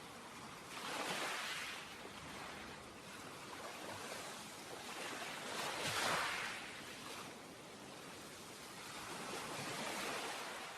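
Ocean surf: waves washing in and drawing back in three swells, the loudest near the middle.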